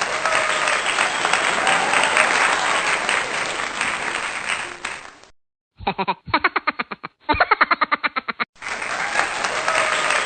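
Crowd applause and cheering that cuts off about five seconds in. After a short gap comes a rapid run of pulsed vocal sounds, about six a second, and then the applause and cheering start again.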